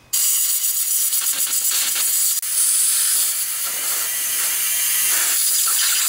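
Compressed air from a blow-gun nozzle blowing through a generator's rubber fuel line to dry out leftover gasoline: a loud, steady hiss. It starts abruptly and drops out for a moment about two and a half seconds in.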